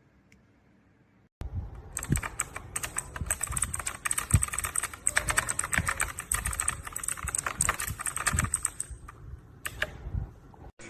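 Fast typing on a LEAVEN H96 mechanical keyboard: a dense, irregular run of keystrokes that starts about a second and a half in and stops just before the end.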